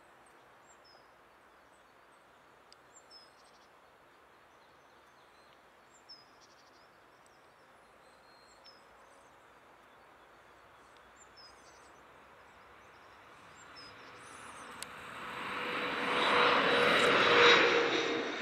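Faint high chirps, like small birds, over a low hiss, then the jet engines of a Bombardier CRJ regional jet on its takeoff run. The engine noise builds over several seconds to a loud peak with a steady whine in it, then cuts off suddenly near the end.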